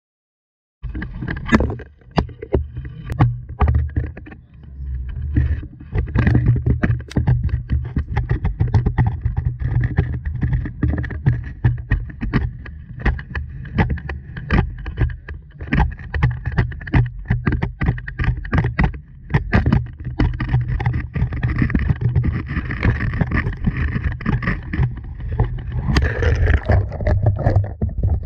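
Handling noise of a GoPro camera being lowered down a storm-water dry well pipe: many sharp knocks and scrapes as it bumps the walls, over a steady low rumble.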